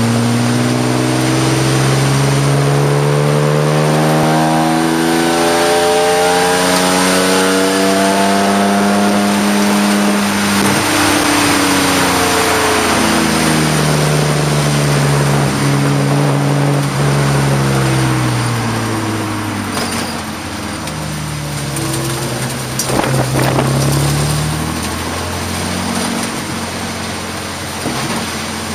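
Race car engine heard from inside the stripped cabin, its revs climbing slowly for about ten seconds, dropping sharply, then rising and falling again a few times, over a steady hiss of road and wind noise on a wet track.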